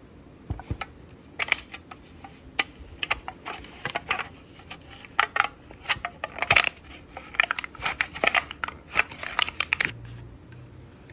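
Foil lid being peeled off a plastic yogurt cup: irregular crinkling and crackling of the foil that stops just before ten seconds in.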